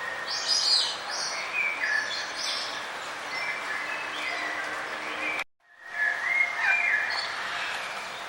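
Several songbirds chirping and calling in quick, overlapping phrases over a steady background hiss. About five and a half seconds in, the sound cuts out abruptly for a moment and fades back in.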